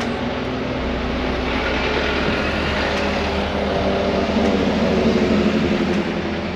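City street traffic: engines running and a vehicle passing close, growing louder about four seconds in and loudest about five seconds in.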